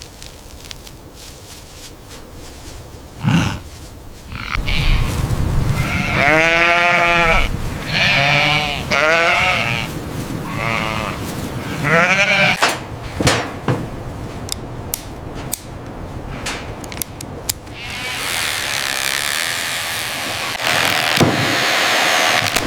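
Sheep bleating: several wavering calls, one after another, through the middle of the stretch. A run of sharp clicks follows, then a steady rushing noise near the end.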